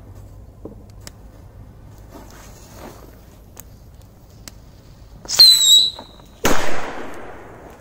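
Two firecrackers exploding on pond ice about a second apart. The first comes with a high whistling ring, and the second is a sharp bang whose tail dies away over most of a second. A few faint clicks come before them.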